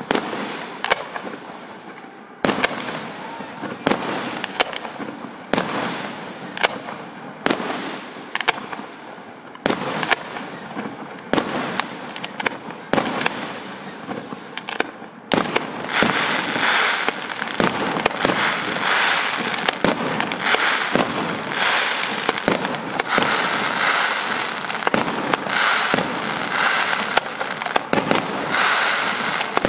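Fireworks display: aerial shells bursting with sharp bangs one after another. From about halfway, a louder, dense crackling fills the gaps between the bangs.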